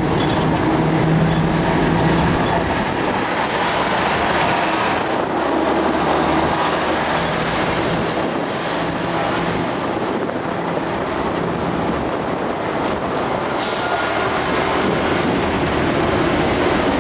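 Hong Kong double-decker tram running along its street tracks, heard from on board: steady wheel-on-rail and running noise mixed with wind, and a low hum that comes and goes. A brief sharp sound cuts in about three-quarters of the way through.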